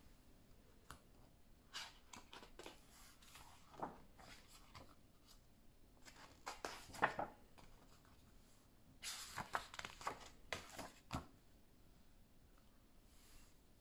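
Pages of a softcover picture book being turned and pressed flat by hand on a table: quiet paper rustles and soft taps in three short spells, about two, seven and ten seconds in.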